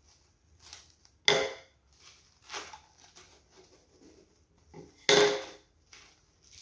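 Clear plastic cling film crinkling and rustling as it is pulled from the roll and pressed around a stack of cake layers, in several short bursts, the loudest about a second in and again about five seconds in.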